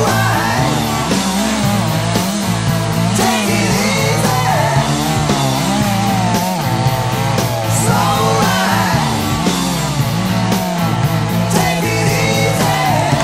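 Rock song with singing and guitar, played steadily.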